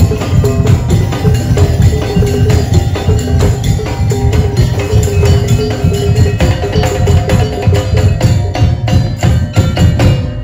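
Daul Madura percussion ensemble playing loud, dense, driving music: heavy drums with rapid wooden-block-like strikes and a repeating pitched figure over a steady beat.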